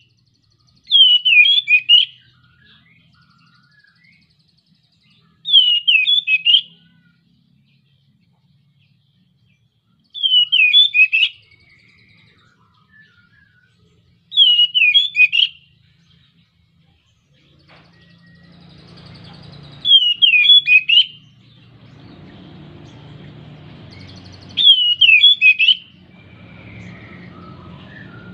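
Male Oriental magpie-robin (kacer) in breeding condition giving a loud, short phrase of quick up-and-down whistled notes, each about a second long, repeated six times at intervals of four to five seconds. A low steady background noise comes in under the calls in the second half.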